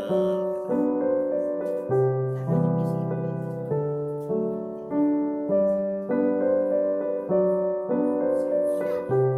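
Background piano music: chords struck in a steady rhythm, a new one every second or so, each ringing and fading before the next.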